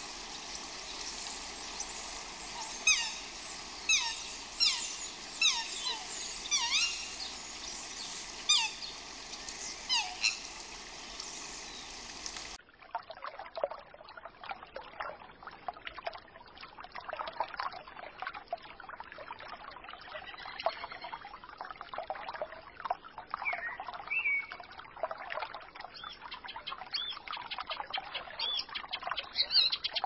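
A series of about ten sharp, downward-sweeping bird calls over a steady hiss. About halfway through this cuts to water running and trickling over stones in a shallow stream, with a few short bird chirps.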